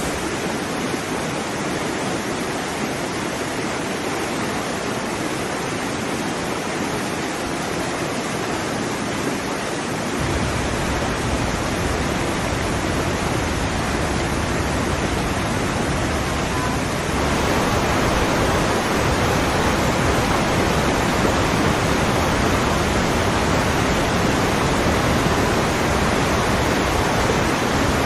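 A waterfall rushing: a steady, even wash of water noise. It shifts abruptly twice, gaining a deep low rumble about ten seconds in and growing louder about halfway through.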